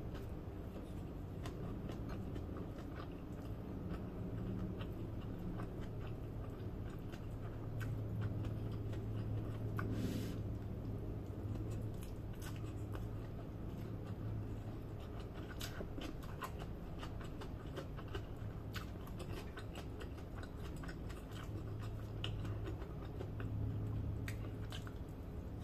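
Close-up chewing of fried rice eaten by hand, with many small wet mouth clicks and smacks scattered through, over a steady low hum.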